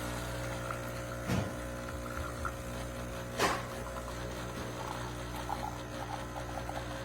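Breville Barista Touch espresso machine's pump running with a steady hum. Two short knocks come about one and three and a half seconds in.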